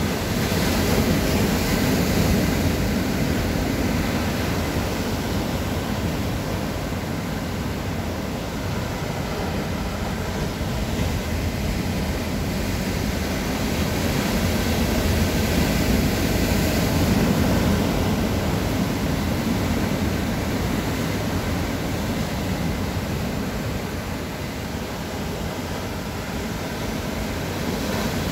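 Rough surf breaking against coastal rocks: a continuous rush of churning water that swells twice, about a second in and again around the middle as a bigger wave hits.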